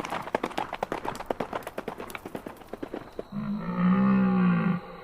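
Rapid hoofbeats fading away over the first three seconds, then one low, drawn-out animal call lasting about a second and a half.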